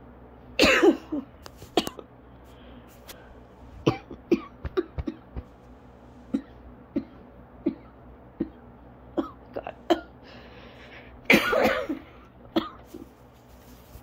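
A person coughing in an asthma coughing fit. There are two loud bouts of coughing, about half a second in and about eleven seconds in, with short single coughs roughly every second between them.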